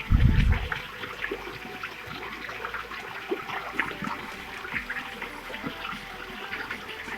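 Flowing water splashing and trickling steadily, with many small splashes, at a waterfall stream. A loud low thump about a tenth of a second in, lasting about half a second.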